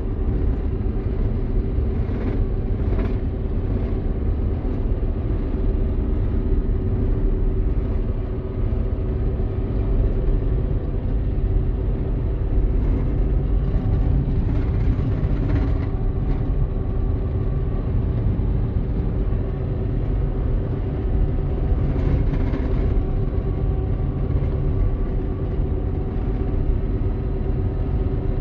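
Claas Dominator 88SL combine harvester's diesel engine running steadily while the machine drives along the road, a constant deep rumble with a steady engine hum, heard from inside the cab.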